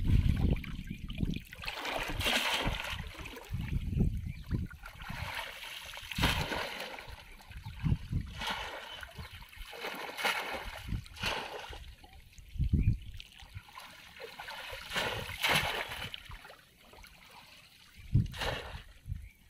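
Shallow water splashing and sloshing in irregular bursts as people wade through it carrying bamboo polo fish traps.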